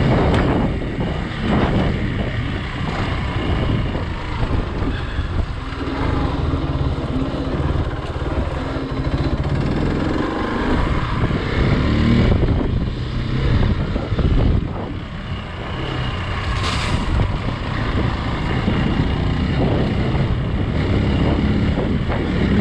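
Hero XPulse 200's single-cylinder engine running as the bike is ridden along a dirt trail, the engine note rising and falling with the throttle and easing off briefly about two thirds of the way through.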